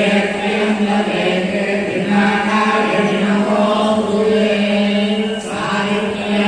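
Group of voices chanting a devotional mantra recitation for a kumkuma puja, held on a steady, nearly level pitch with a brief break about five and a half seconds in.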